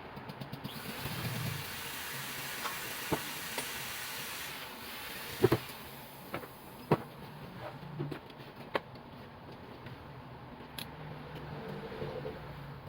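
Workbench handling sounds: a series of sharp knocks and clicks, as of tools and metal parts being picked up and set down, the loudest about halfway through. A steady hiss runs under the first few seconds.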